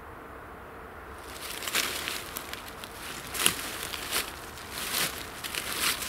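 Footsteps crunching and rustling through dry fallen leaves, irregular crackles starting about a second in, over a faint low background rumble.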